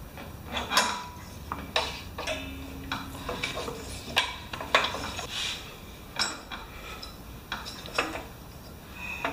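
Irregular metallic clinks and clicks of hand tools, a ratchet and socket, working on the bare top of a Powermore mower engine.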